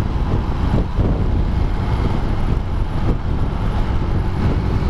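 Small motorcycle being ridden at a steady speed, its engine and road noise giving a continuous low rumble from the rider's seat.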